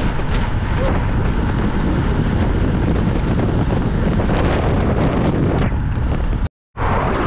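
Wind buffeting the microphone of a camera riding along on a moving bicycle, a loud steady rush. It cuts out to silence for a moment near the end.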